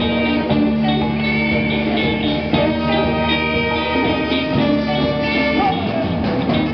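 A live rock band playing loudly: electric guitars and bass over a drum kit, with saxophone and trumpet.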